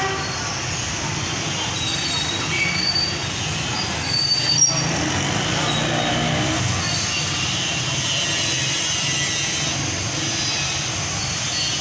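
Street traffic of small motorcycles, their engines running steadily as they ride past. A few short high squeaks sound in the first half, and a sharp click about four and a half seconds in is the loudest moment.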